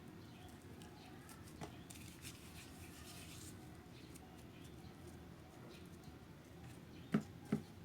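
Faint rubbing and handling of soft slime as small pieces are shaped and pressed down, with two short soft clicks near the end.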